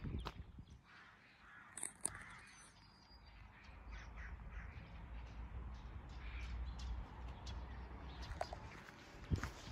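Faint cawing of crows, several scattered calls. A low steady rumble sets in about four seconds in.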